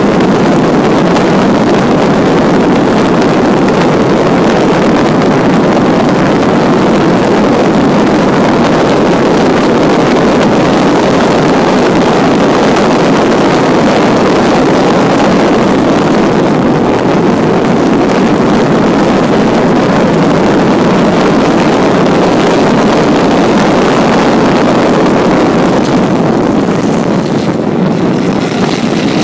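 1952 Jaguar XK120's inline-six engine running hard at racing speed, mixed with heavy wind rush on an onboard camera. The sound eases a little near the end as the car slows for a corner.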